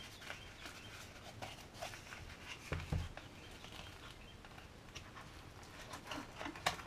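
Faint rustling and small clicks of parts and packaging being handled, with a soft thump about three seconds in and a sharper click near the end.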